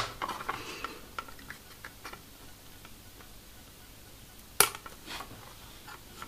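Small plastic model parts and a glue bottle being handled on a workbench: faint scattered ticks, then one sharp click about four and a half seconds in.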